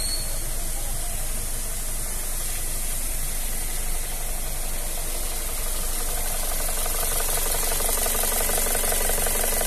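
Toyota Corolla Altis engine, converted to run on LPG with a sequential gas kit, idling steadily. A fast, even pulsing grows clearer in the second half.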